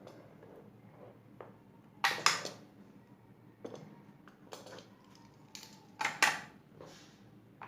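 Hard plastic clicking and clattering as a boxed USB cable and its packaging are handled, in a string of short knocks, loudest as two pairs about two seconds in and about six seconds in.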